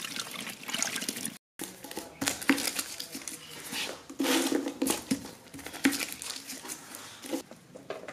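Wet sloshing and clicking as a hand stirs a basin of green twine-wound atom bomb firecrackers in liquid, cut off abruptly about a second and a half in. After a brief dead gap, scattered clicks and taps of hands handling the crackers and materials.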